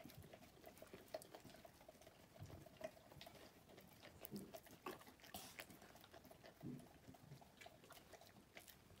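Faint, irregular licking and eating sounds of a golden retriever working at a ceramic bowl, with scattered small clicks.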